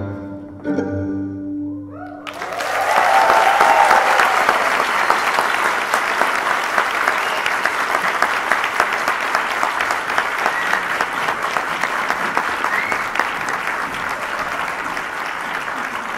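The closing notes of a live string-led tango ensemble die away, then about two seconds in an audience breaks into applause that goes on steadily.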